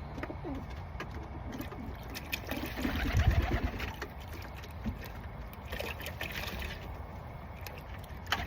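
Pigeons cooing in short low calls, with water trickling and splashing as a tippler pigeon is bathed by hand.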